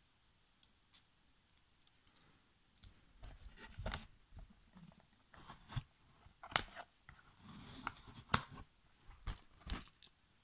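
Scissors snipping the wire ties that hold toy cars to a cardboard packaging insert. The cardboard is handled and rustles, and there are several sharp snips in the second half.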